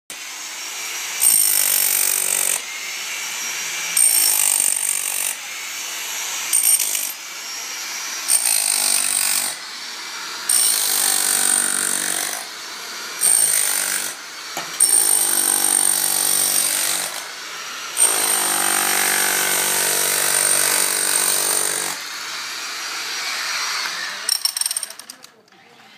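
Electric demolition hammer chiselling old plaster off a concrete pool wall. It runs in repeated bursts of one to four seconds with short pauses between them.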